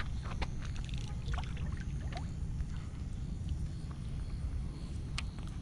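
A hooked largemouth bass being landed: a few short splashes and clicks in the first two seconds as it is lifted from the water and handled, over a steady low rumble.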